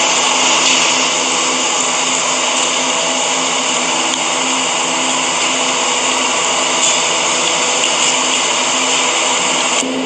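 Loud, steady mechanical drone with a held whining hum, like a motor running without a break.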